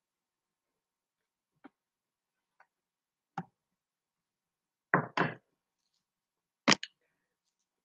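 A few short, scattered knocks and clicks close to the microphone: three faint ones, then a louder double knock about five seconds in and another loud pair near the end.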